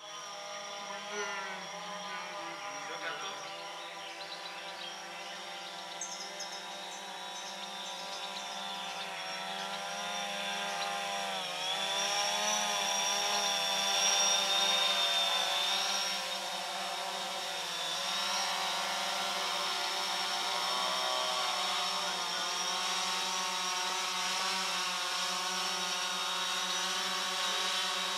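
Multirotor drone hovering, its propellers giving a steady, many-toned buzzing whine whose pitch wavers and dips as it manoeuvres. It gets louder about twelve seconds in as it comes down low over the fire pit, its downwash fanning the coals.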